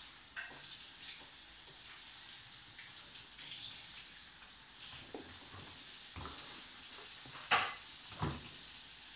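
Plastic Blendtec blender jar and its lid being handled, with light clicks and knocks, then two louder knocks near the end as the jar is set onto the Vitamix blender base, over a steady hiss.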